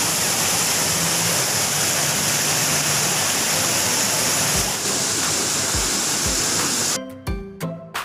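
Spring water pouring over a pool's stone spillway in a steady, loud rush. About seven seconds in it cuts abruptly to music with a strong beat.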